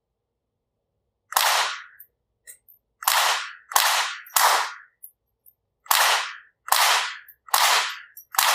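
Rossi RS22 semi-automatic .22 rifle fired eight times in an uneven string of sharp cracks, the first about a second in and the rest coming roughly a second or less apart.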